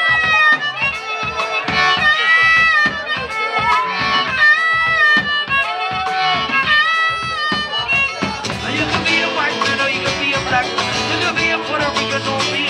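Harmonica solo over acoustic guitar and a drum kit: long wailing notes that bend in pitch over a steady drum beat for about the first eight seconds, after which the harmonica drops out and the guitar and drums play on.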